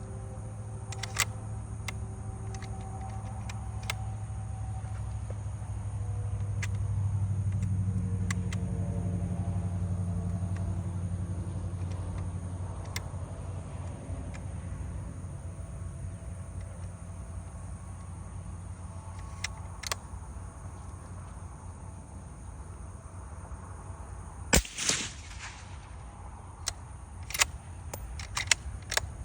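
A low engine drone, like a vehicle passing, that swells over several seconds and then fades, with scattered sharp clicks and one louder crack about 25 seconds in.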